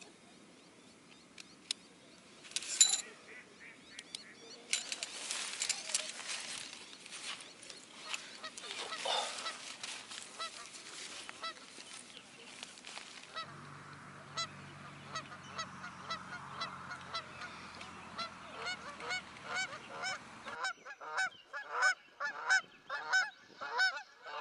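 Waterfowl honking, faint at first, then many loud overlapping calls about two or three a second near the end. Earlier, rustling and clicks of tent nylon and poles being handled.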